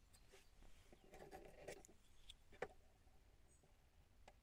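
Near silence, with a few faint clicks and rubs from hands working the focusing rod of a wooden box camera; the clearest click comes about halfway through.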